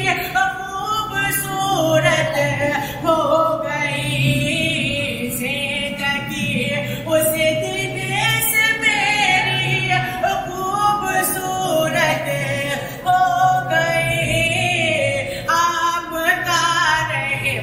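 A voice singing a devotional Urdu naat, drawing out long, ornamented notes that glide up and down, with a steady low accompaniment underneath.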